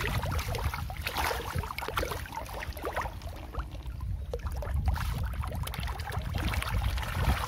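A crowd of Black Prima Nile tilapia splashing and thrashing at the water surface as they feed hungrily, many small irregular splashes, over a steady low rumble.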